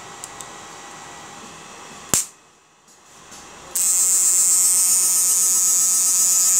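Homemade 12 V IGBT electric fish-shocking inverter: a faint steady hum, a single sharp click about two seconds in, a short moment of near quiet, then from nearly four seconds a loud, steady, high-pitched electrical buzz as the machine runs.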